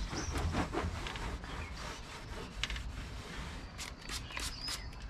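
Scrubbing at the track of a sliding glass door frame with a small hand tool: scratchy rubbing with a few sharper scrapes, over a low steady rumble.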